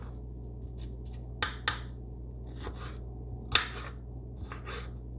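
A kitchen knife cutting through bell peppers on a cutting board: several short, irregular knocks of the blade against the board, the loudest about three and a half seconds in, over a steady low hum.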